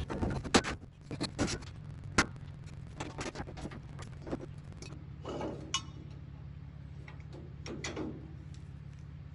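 Trailer loading ramps being handled and stowed: a run of sharp metallic clanks and rattles, dense at first and then more scattered, over a vehicle engine idling steadily.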